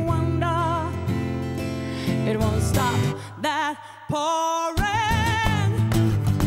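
Live acoustic pop performance: a woman's voice sings long held notes with vibrato over a strummed acoustic guitar and a hand-played djembe. About three and a half seconds in the accompaniment drops out briefly, leaving the voice alone, then comes back in.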